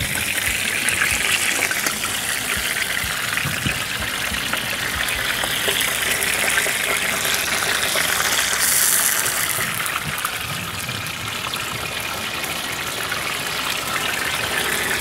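Whole mackerel frying in hot oil in a skillet: a steady sizzle with fine crackling, briefly louder about halfway through as more fish go into the pan.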